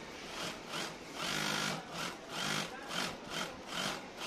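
Precious single-needle industrial sewing machine stitching denim in stop-start runs: a series of short bursts of whirring, with one longer run about a second in.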